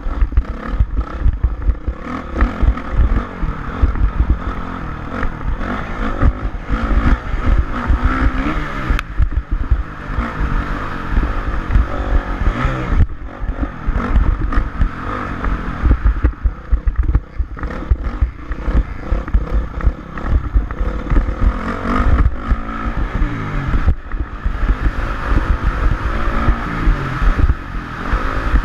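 Motocross dirt bike engine revving up and down while being ridden, with gusting wind buffeting the microphone.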